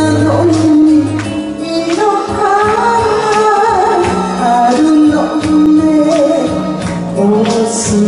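A woman singing a Japanese duet song into a microphone over instrumental accompaniment with a steady beat.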